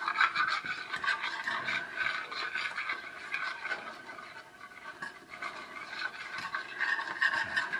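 Wire whisk scraping and swishing around a white nonstick skillet, mixing a wet oil and hot-sauce spice paste, in quick repeated strokes that ease off a little around the middle.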